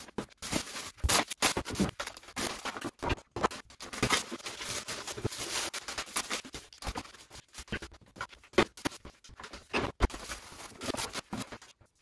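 Plastic snack packets and grocery bags crinkling and rustling as they are handled and set down on a kitchen worktop, with irregular crackles and light knocks.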